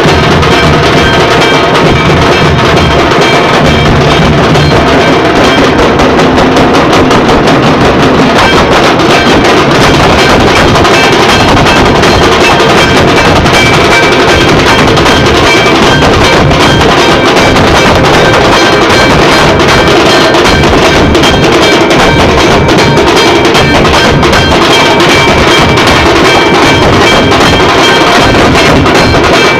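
Very loud music with heavy drums and percussion, playing continuously.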